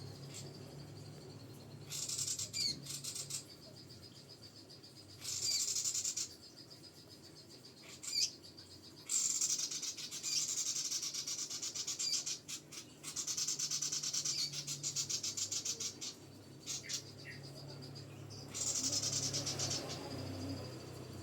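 Small songbird singing in bursts of rapid, high-pitched trilling chatter, about five phrases of one to four seconds with short pauses between them, over a faint steady low hum.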